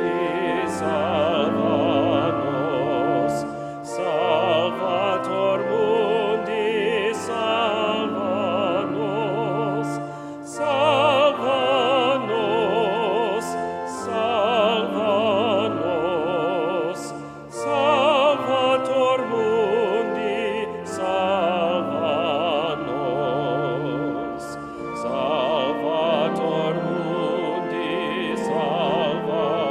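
A solo voice singing a slow hymn with wide vibrato over sustained accompaniment, in the cathedral's reverberant space.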